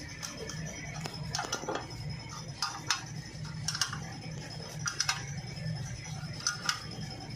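Wood lathe running with a steady low hum, with irregular sharp clinks and scrapes every second or so as a turning tool works the spinning wood.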